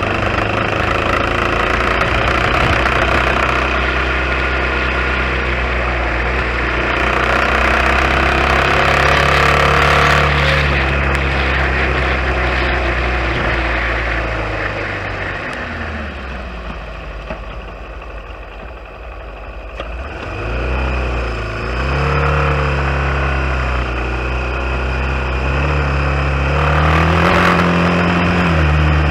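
Dirt bike engine running under way, its pitch rising and falling with the throttle. It eases off and goes quieter about two-thirds of the way through, then picks up again and climbs near the end.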